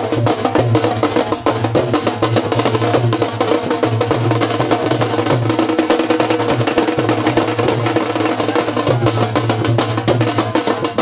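Background music with fast, busy percussion over a steady bass line.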